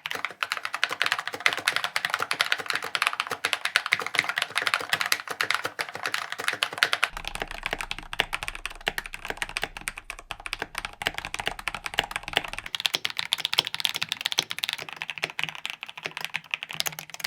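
Fast typing on a mechanical keyboard fitted with Akko Matcha Green linear switches: a dense run of high-pitched, tappy key clacks.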